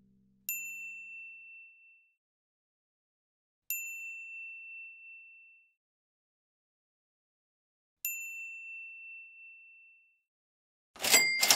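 Three bright, bell-like ding chimes, a few seconds apart, each struck once and ringing out over a second or two. Near the end a dense clatter of metallic clinks begins.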